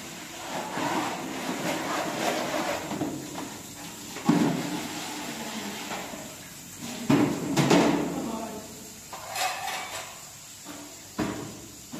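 A series of irregular knocks and thuds a few seconds apart, like objects being set down or handled.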